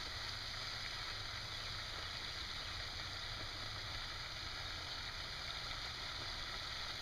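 Steady faint outdoor background hiss with a low rumble underneath; no distinct event stands out.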